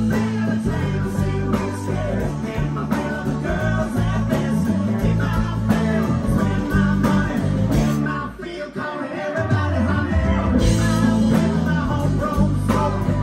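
A live country-rock band playing, with acoustic and electric guitars and a keyboard, and a brief drop in the low end about eight seconds in.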